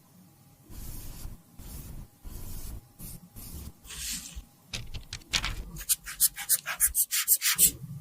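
Handwork scraping and rubbing on cosmetics: a few soft, separate rubbing strokes, then a quick run of sharp scraping strokes, several a second, in the second half.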